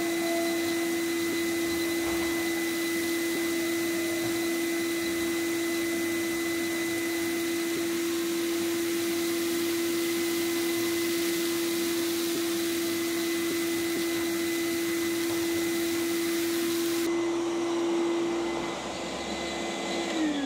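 ETA 3404 vacuum cleaner running with a steady whine, pulling air and fine dust through a cyclone pre-filter. Near the end it is switched off and the motor's pitch starts to fall as it winds down.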